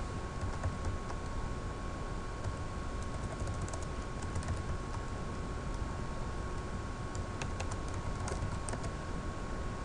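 Computer keyboard keystrokes as a password is typed, in two short runs of quick clicks about three seconds in and again near the end, over steady background noise with a faint steady tone.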